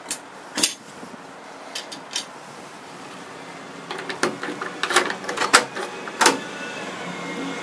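Metal clicks and rattles of a combination lockbox being handled and opened, then a key working in a doorknob lock, with a dense run of clicks in the second half.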